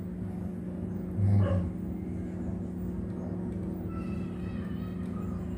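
A steady low hum, with one short, loud, rising vocal sound about a second in.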